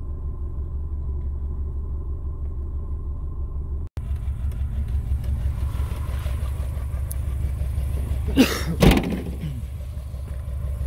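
A vehicle driving on a dirt road, heard from inside the cabin: a steady low rumble of engine and tyres. The sound drops out for a moment about four seconds in, and a short loud falling sound comes about eight and a half seconds in.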